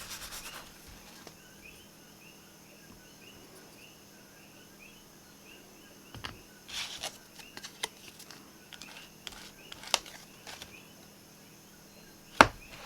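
Small handling sounds from nail stamping tools: a short rapid scraping at the start and again about six to seven seconds in, scattered light clicks and taps, and one sharp tap near the end. Faint repeated chirping runs in the background.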